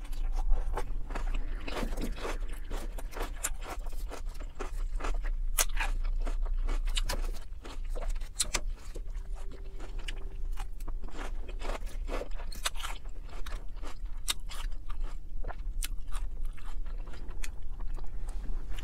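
A person chewing crisp lettuce: many irregular crunches and wet bites in quick succession.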